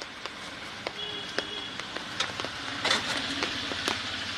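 A thin jet of water from a hose spraying into the open front panel of a scooter, a steady hiss with splashing that grows louder about a second in, with scattered sharp taps.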